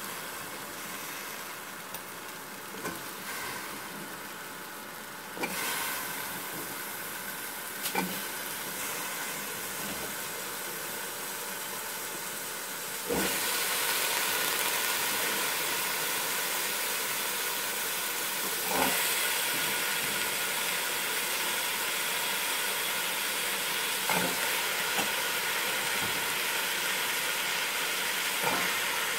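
Masala sizzling in hot oil in a steel pot as chopped carrots and potatoes are added, with a few soft knocks; the sizzle gets louder about five seconds in and again near the middle.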